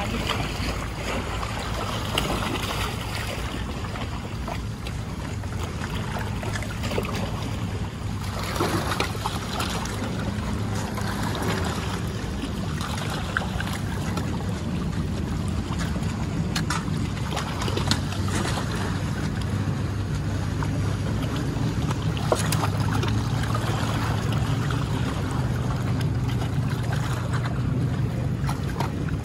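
Steady low engine drone that grows a little stronger in the second half, over wind and outdoor noise, with a few faint clicks.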